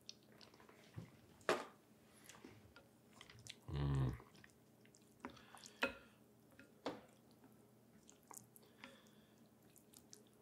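Close-miked eating of pho: soft chewing with a few sharp clicks, and a short low voiced sound, like a hum, about four seconds in.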